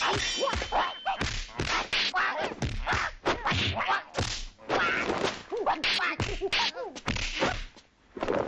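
Dubbed kung fu fight sound effects: a rapid run of punch and kick whacks and thuds, mixed with short shouts and grunts from the fighters. A brief ringing tone sounds in the first second, and the blows stop for a moment just before the end.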